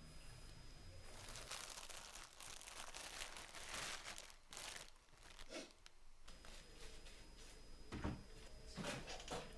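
Plastic packaging crinkling and rustling as it is handled, then a couple of knocks near the end.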